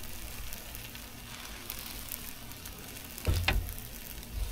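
Food sizzling and crackling on a Blackstone 17-inch flat-top griddle, a steady frying hiss with fine pops. A short louder thump about three seconds in.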